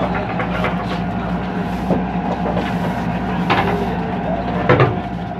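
Steady low drone of a river passenger boat's engine, heard inside the passenger cabin, with a few sharp knocks and clatters about two, three and a half, and nearly five seconds in.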